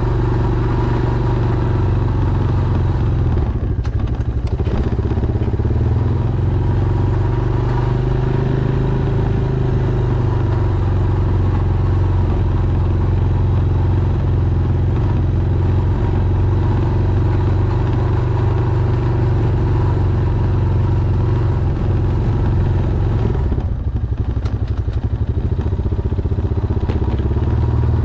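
Honda Foreman ATV's single-cylinder four-stroke engine running steadily under load while pushing a snow plow, easing off briefly about four seconds in and again near the end.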